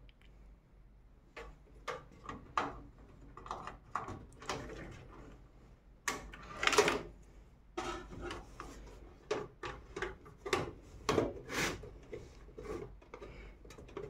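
SATA data cable being handled and plugged into the motherboard's SATA port: a run of small irregular clicks, taps and rustles. The louder ones come about seven seconds in and again near the end.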